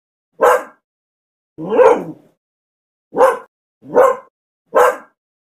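A dog barking: five separate barks with silence between them, the second one longer and falling in pitch.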